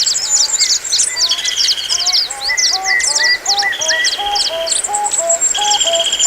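A chorus of wild birds calling at once: many rapid high chirps overlapping, with short buzzy trills that recur every second or so and a series of repeated lower whistled notes.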